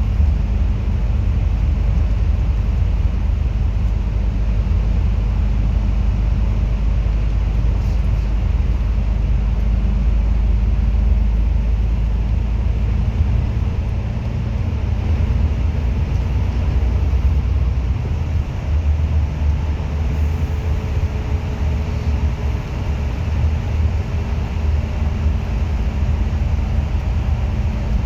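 Single-deck bus driving, heard from inside the cabin: a steady low engine and road rumble that eases a little about halfway through, with a faint whine slowly falling for a few seconds after that.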